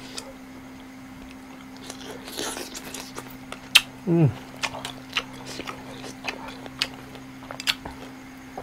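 A person chewing crisp raw long bean in the mouth, with scattered sharp crunches, the loudest a little under four seconds in, and a short falling vocal sound just after. A steady low hum runs underneath.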